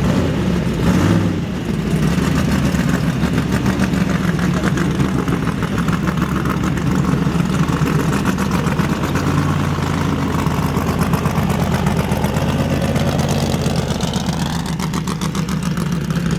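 A Formula Offroad race buggy's engine running steadily at idle.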